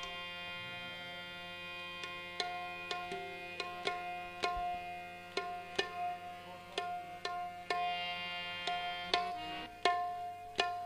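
Qawwali instrumental passage: harmonium holding a steady chord, with tabla strokes coming in about two seconds in, spaced out at first and quickening near the end.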